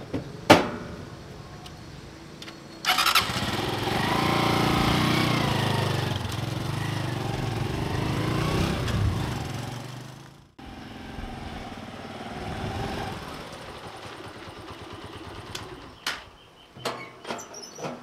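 Motorcycle engine starting about three seconds in and revving with shifting pitch as it pulls away. After a sudden cut, the engine runs on more quietly, and a few short sharp clicks come near the end.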